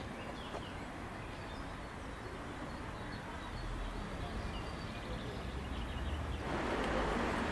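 Outdoor ambience: a steady hiss of background noise with a low rumble and a few faint bird chirps. It becomes louder and brighter about six and a half seconds in.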